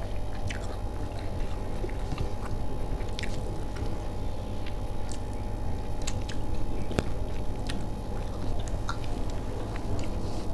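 A person chewing food, with scattered small clicks, over a steady low hum.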